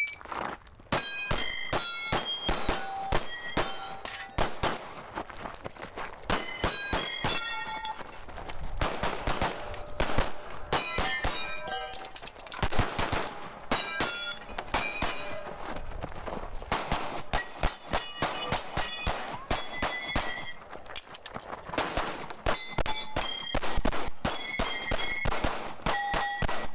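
Rapid pistol fire through a timed practical-shooting stage: quick strings of shots with short breaks as the shooter moves between positions, and steel targets ringing with clear steady tones after hits.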